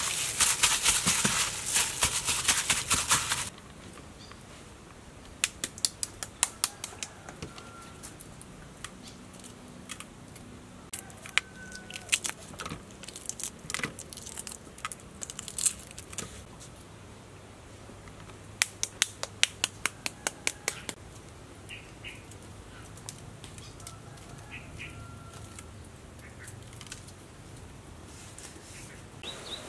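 Wet squishing of raw pork being kneaded with salt by hand for the first few seconds. Then come irregular bursts of sharp crackling clicks as century egg shells are cracked and picked off, with a few faint bird chirps behind.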